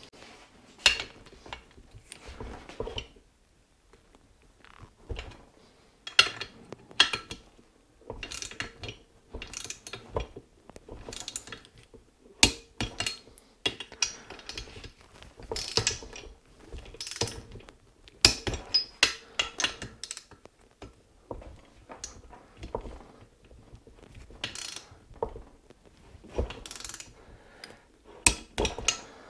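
Ratchet wrench pawl clicking in short, irregular runs as bolts on the cylinder head of a Yamaha G29 golf cart engine are tightened down.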